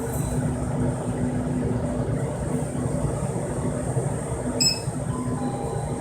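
Steady low rumble of a running vehicle with a faint hum, broken about three-quarters of the way through by a short high-pitched electronic blip.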